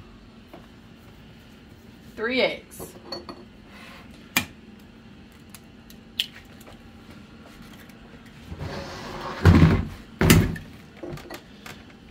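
Eggs being knocked against the rim of a ceramic mixing bowl and cracked open: scattered sharp clicks and knocks, with two louder knocks near the end. A brief voice comes in about two seconds in.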